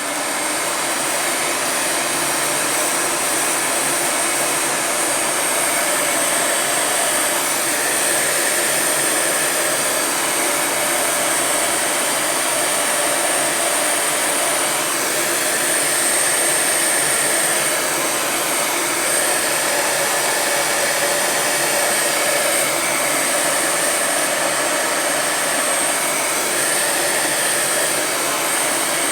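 Electric heat gun running steadily, its fan blowing hot air to shrink heat-shrink tubing over a crimped wire splice, with a steady high whine over the blowing.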